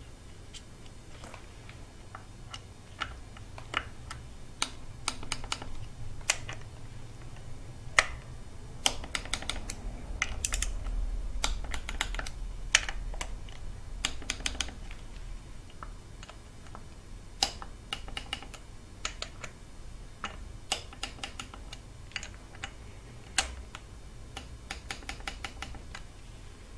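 Ratchet wrench clicking in short quick runs, mixed with scattered light metallic clicks and taps, as the small bolts of the cam sprocket bolt covers are run down.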